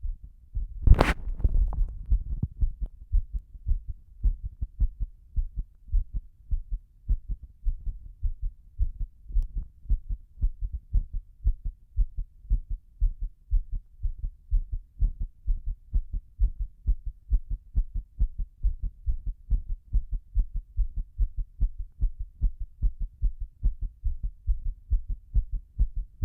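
Human heartbeat picked up close against the chest during a held breath: a fast, steady pounding of low thumps with no breathing between them. A single brief knock is heard about a second in.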